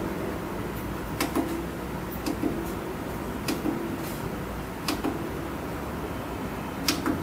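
Push buttons on a traffic signal controller's front panel clicking as they are pressed: about seven short, sharp clicks at uneven intervals, two of them close together near the end, over a steady low hum.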